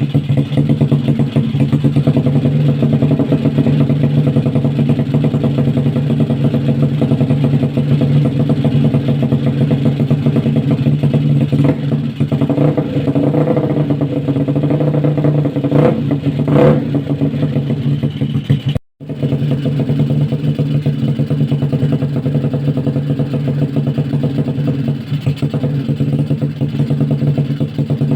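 Bored-up Honda Vario 110 scooter's single-cylinder four-stroke engine running steadily at an even speed. The sound cuts out for a moment about two-thirds of the way through.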